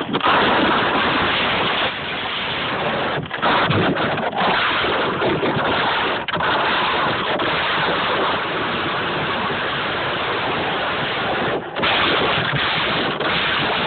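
Steady rushing noise of a bucket sliding fast down a hill, with wind buffeting the phone's microphone. A few brief dips break it.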